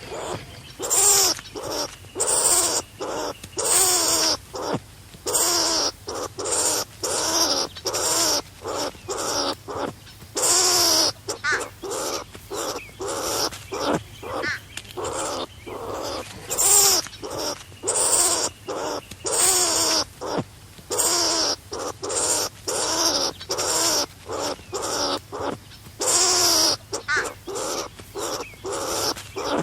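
Skunk calling over and over: short squealing calls with a hissy edge, each rising and falling in pitch, coming about one to two a second.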